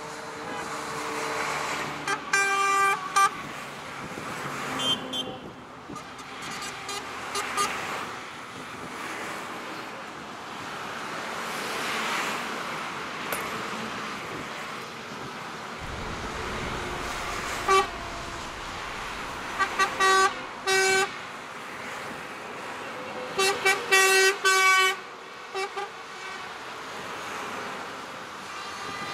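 Lorries in a convoy driving past on a motorway, engines and tyres rushing steadily, while truck horns sound in short repeated blasts, several notes together, in bursts again and again.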